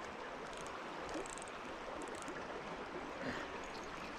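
Shallow creek water running steadily over rocks, with a few faint light clicks in the first half.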